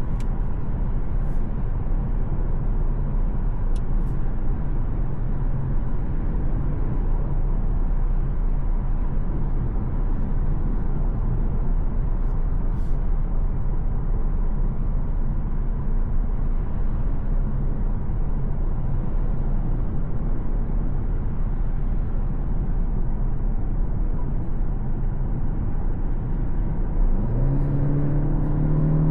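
A 2025 Mercedes-Benz C 200 driving steadily with a constant low hum of tyre and road noise and the engine in the background. Near the end, the engine note of its 1.5-litre four-cylinder turbo petrol rises as the car accelerates.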